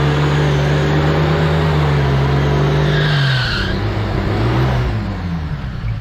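1962 Willys Jeep CJ-5's engine held at high revs under load, its wheels spinning in the mud on a steep climb. About three seconds in the revs drop, then rise and fall as the driver works the throttle.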